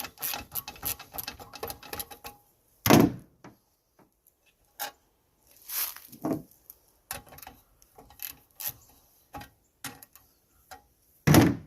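Socket ratchet clicking rapidly while bolts on the engine cover are worked loose, for the first couple of seconds. Then scattered knocks and clunks of tools and metal parts, the loudest about three seconds in and near the end.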